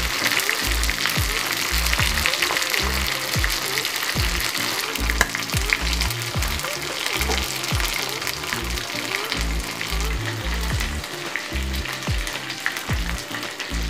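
Quail pieces frying in hot oil in an iron kadai, a steady sizzle. Background music with a deep, repeating bass line plays alongside.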